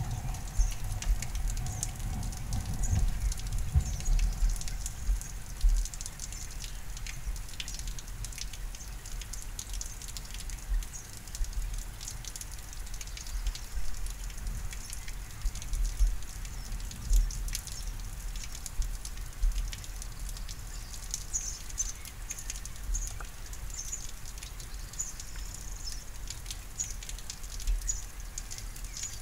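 Rain during a thunderstorm: a crackling patter of many scattered drop taps over a low, uneven rumble. The rumble is heaviest in the first six seconds.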